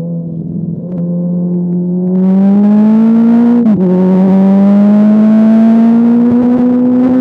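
Motorcycle engine accelerating hard: its pitch climbs steadily, drops sharply with an upshift a little past halfway, then climbs again in the next gear.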